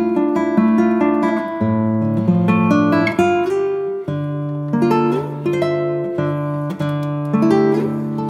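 Background music on acoustic guitar: plucked chords that change every second or two over low bass notes.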